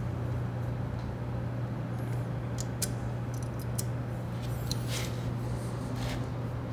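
Steady low background hum, with a scatter of faint small metal clicks as a washer and nut are fitted by hand onto a motorcycle exhaust mounting bolt, several clustered about midway through.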